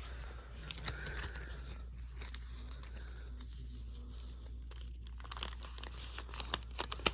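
Packaging crinkling and rustling with scattered light clicks as a DVD case is handled, the clicks getting busier near the end.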